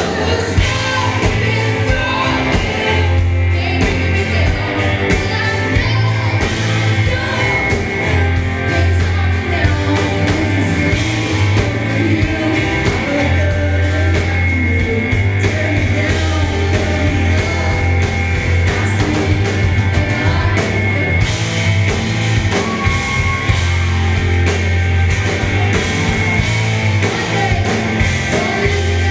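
Live country-rock band playing loudly: a woman singing lead over electric and acoustic guitars, drums and a heavy bass line.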